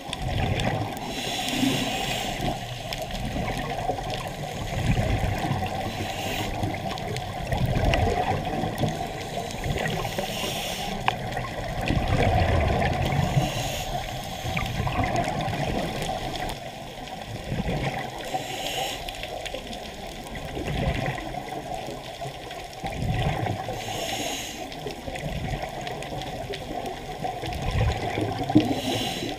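Muffled underwater noise heard through a waterproof camera housing, with bursts of scuba regulator exhaust bubbles every few seconds as a diver breathes out.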